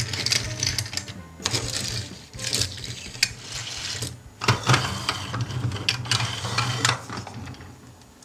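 Small die-cast toy cars rolled across a hard tabletop and knocked into place against one another: an irregular run of small clicks and rattles.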